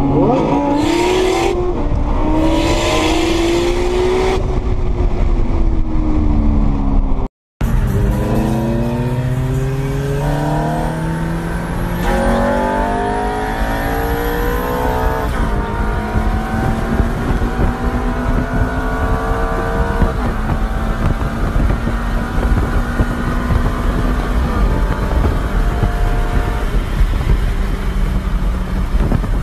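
Car engines at full throttle, recorded from inside the cars. One engine's pitch climbs and then falls away. After a sudden cut, another engine climbs through several gear changes and then holds a steady high-speed drone. There are two short rushes of hiss near the start.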